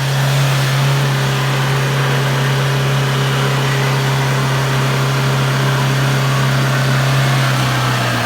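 Vehicle engine running at a steady speed, a constant low drone with road and wind noise.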